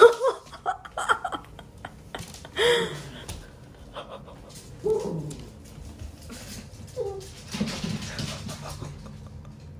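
A few short, separate vocal sounds about every two seconds, each a brief bend in pitch, with faint clicks and taps between them.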